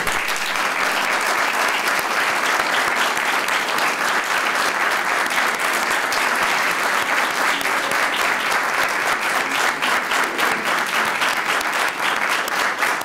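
A room full of people applauding: steady, dense clapping that keeps up without letting up.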